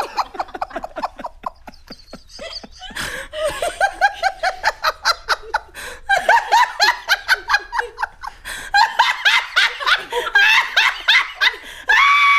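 A woman laughing uncontrollably in quick, rhythmic gasps, growing louder as it goes and breaking into a long high-pitched squeal near the end.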